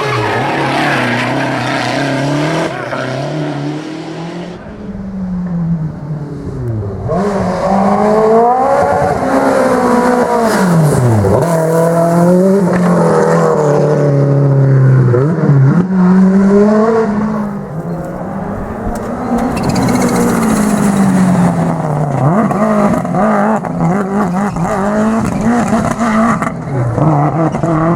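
Rally car engines revving hard on a stage, their pitch climbing and then dropping sharply again and again with gear changes and lifts off the throttle. There is a quieter spell about four to seven seconds in.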